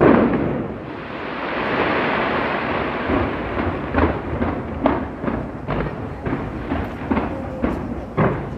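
Fireworks going off: a loud boom right at the start, a rolling rumble and crackle for a couple of seconds, then a quick run of sharp bangs, several a second.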